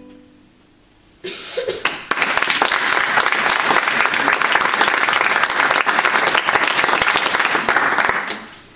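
The last accordion chord dies away, then after about a second of quiet an audience breaks into steady hand-clapping applause, which fades out near the end.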